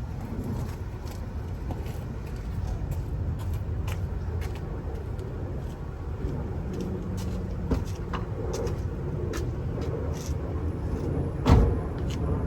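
Scattered light clicks and knocks of a plastic oil drain pan and tools being handled under a car, with one louder thump about eleven and a half seconds in, over a steady low rumble.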